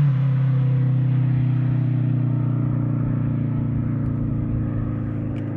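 Custom tube-chassis car's engine and exhaust driving away: the engine note falls in pitch at the start, then holds steady and fades as the car goes off into the distance.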